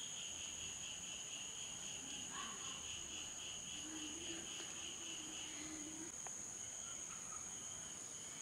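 Insects chirring steadily in dense vegetation: a continuous high-pitched shrill with a pulsing trill below it that fades about five and a half seconds in and returns near the end.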